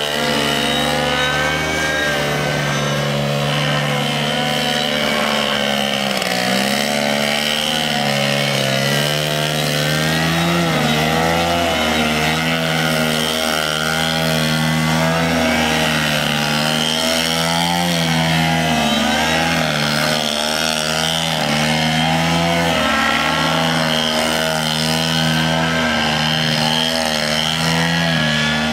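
Radio-controlled aerobatic model plane's engine running hard, its pitch wavering up and down as the throttle is worked to hold the plane hanging nose-up on its propeller.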